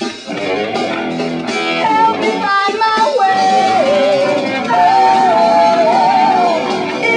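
Progressive metal band music: guitars with a long, wavering melody line held from about two seconds in.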